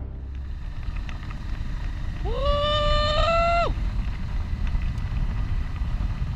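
A rider's victory whoop, gliding up, held for about a second and a half, then falling away, over the steady low rumble of a Honda Transalp 650 V-twin engine running, with wind noise.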